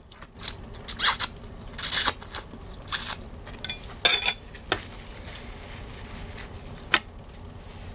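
Close-miked eating of spaghetti: noodles slurped in and chewed, heard as a run of short, sharp wet mouth noises over the first five seconds, then quieter, with a single click near the end.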